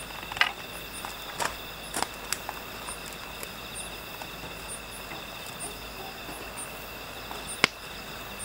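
Wood fire in a steel fire pit crackling with scattered sharp pops and knocks as a log is pushed into it, the loudest crack near the end. Insects chirp steadily in the background.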